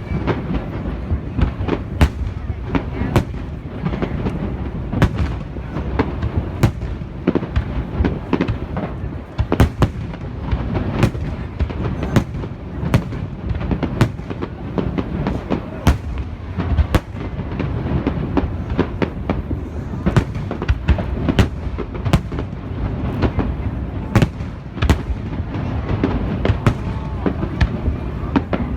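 Aerial fireworks display: shell bursts go off one after another at irregular intervals, over a continuous low rumble of overlapping explosions.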